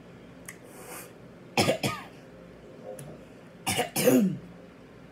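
A woman coughing and clearing her throat in two short bouts, about two seconds apart, the second ending in a brief falling voiced sound.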